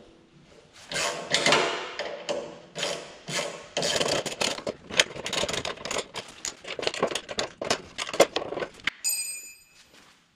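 Rapid clicking and clanking of a hand wrench and steel exhaust parts as the exhaust valve actuator is unbolted from the removed muffler, with a short metallic ring near the end.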